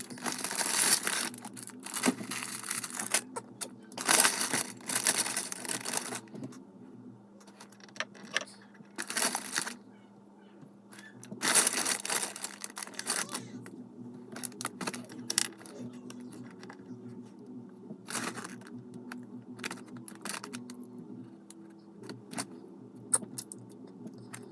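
Plastic packaging of a Lego set rustling and tearing in several bursts of a second or two as the bags of pieces are opened, with small clicks and rattles of pieces in between.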